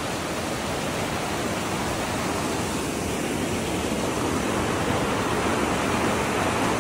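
Waterfall rushing, a steady dense roar of falling water that grows slightly louder toward the end.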